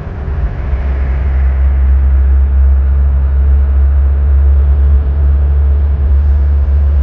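Moving car's road and wind noise, a steady loud low rumble heard from the vehicle.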